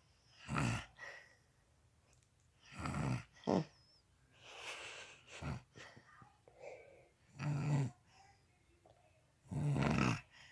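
A woman snoring loudly, like a pig. Four loud snores come about two to three seconds apart, with softer breaths between them.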